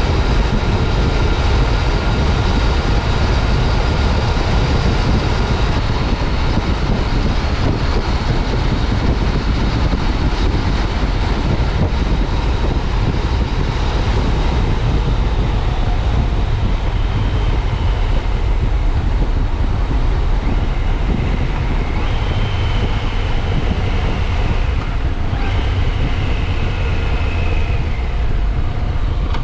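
2015 Yamaha FJ-09 Tracer's 847 cc inline-three engine running under way, heard from a helmet chin-mounted camera along with wind rush and road noise. The sound is a steady, heavy drone, with faint whining tones coming and going in the second half.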